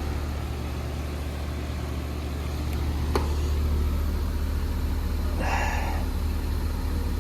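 Heil heat pump outdoor unit running with a steady low hum from its compressor and fan, just after power has been restored. There is a single click about three seconds in and a brief hiss a little after five seconds.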